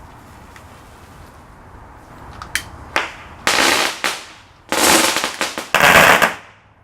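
Small firecrackers going off: a few sharp cracks about two and a half seconds in, then three louder bangs, each trailing off over half a second or more.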